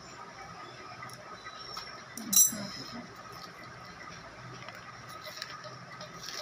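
A single sharp metallic clink from steel scissors about two and a half seconds in, followed by faint rustling and small tearing sounds as a soaked sanitary pad is pulled apart by hand. A faint steady hum runs underneath.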